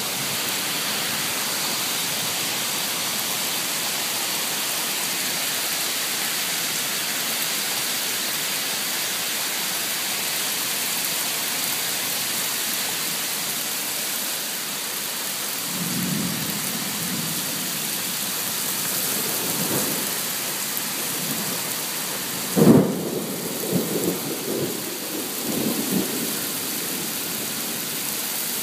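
Rain falling steadily on a shingled roof during a thunderstorm. Thunder rumbles in from about halfway through, with one sudden loud clap about two-thirds of the way in, followed by several shorter rolls of thunder.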